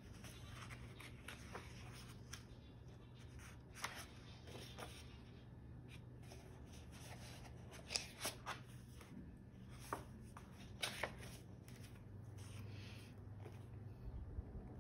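Paper pages of a paperback book being turned and handled by hand: faint rustling with scattered sharper flicks and taps, the clearest a quick cluster about eight seconds in and a couple more around ten to eleven seconds.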